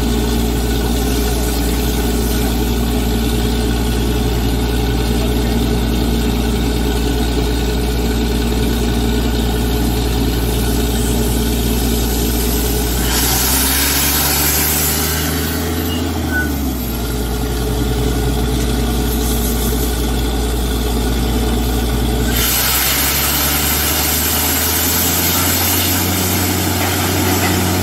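Truck-mounted borewell drilling rig running steadily while drilling, its engine giving a constant drone. A loud hiss comes in about halfway for a few seconds and again for the last five seconds, and the engine note shifts each time.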